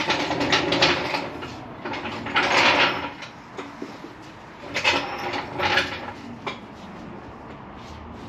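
Floor jack being set in place under the car: scraping and metal clanks in three bursts, with a few sharp knocks.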